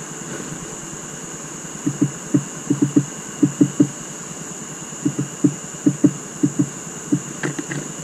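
Irregular dull knocks on the wooden bird feeder, often in quick pairs and threes, about twenty of them, with a few sharper clicks near the end.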